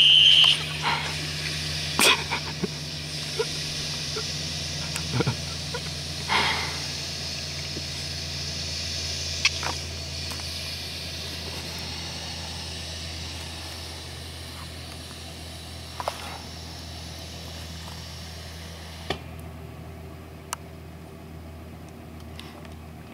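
A high steady whistle from a latex-glove whistle rigged on a Chevy pickup's exhaust, cutting off about half a second in. After it, the truck's engine gives a steady low hum with a faint hiss that slowly fades, broken by a few short clicks.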